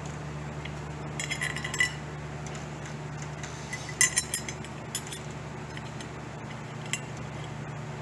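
Light metallic clinks and rattles of an aluminium backup spar and its small screws being handled against a cast-iron mill knee as the screws are started by hand, in clusters about a second in and about four seconds in, over a steady low hum.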